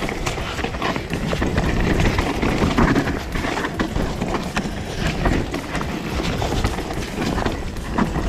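Mountain bike riding a wet, muddy trail: tyres rolling and splashing through mud, with the bike rattling and clattering over rough ground in many quick knocks. Wind buffets the microphone.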